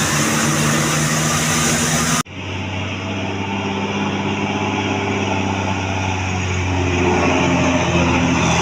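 Large bus engine running. An abrupt cut about two seconds in switches to a steadier, low engine drone with a slowly shifting pitch.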